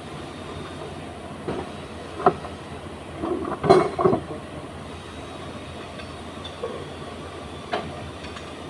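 A few metal clanks and knocks from work on a rear differential, the loudest cluster about three to four seconds in, over a steady background noise.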